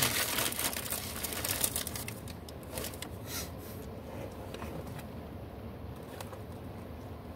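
Rustling and crinkling handling noise with scattered sharp clicks, dying away after about three and a half seconds into a steady low background noise.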